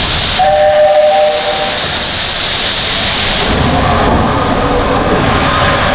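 Steam locomotive venting steam in a loud, steady hiss from low around its cylinders. A steady two-note tone sounds for about a second near the start.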